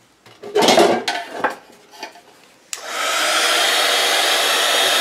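Handheld craft heat gun switched on about two and a half seconds in, its fan blowing a steady rush of air to dry wet watercolour paper. A few brief handling sounds come before it.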